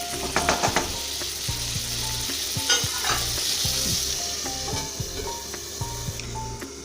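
Chicken pieces sizzling as they fry in oil in a pan, with a few sharp metal clinks about half a second in and again around three seconds.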